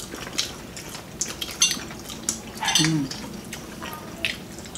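Metal forks clicking and scraping against ceramic plates in scattered, irregular taps, with a brief vocal sound about three seconds in.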